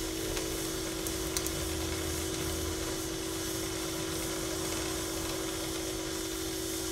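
Steady hiss of an oxy-acetylene welding torch burning a neutral flame through a number two tip, at 4 psi oxygen and 4 psi acetylene, while it melts and fuses 16-gauge sheet steel without filler rod. A steady low hum runs underneath.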